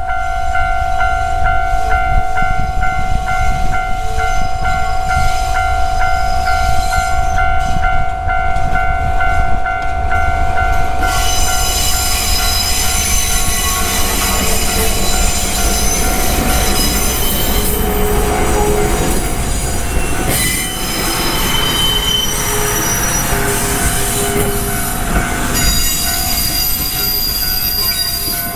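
A DE15 diesel locomotive hauling a tourist trolley train passes close by, its engine rumbling low. From about 11 seconds in, high-pitched wheel squeal over the curving tracks and points rises and lasts to the end. A steady high tone sounds throughout.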